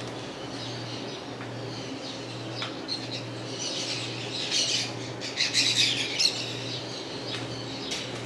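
Birds chirping and squawking, busiest and loudest from about three and a half to six seconds in, over a low hum that pulses about once a second.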